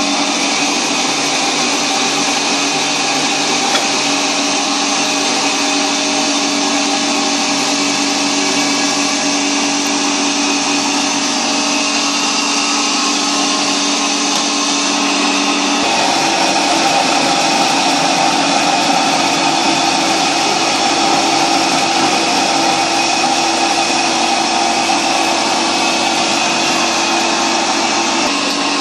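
Electric fruit mill running steadily with a loud, even motor noise while it is fed with fruit; its tone changes about sixteen seconds in.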